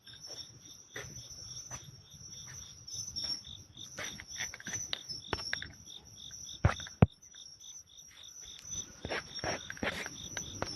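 Crickets calling at night: one steady high trill, with another insect pulsing about four times a second. Scattered clicks and taps run through, with two sharp knocks about seven seconds in.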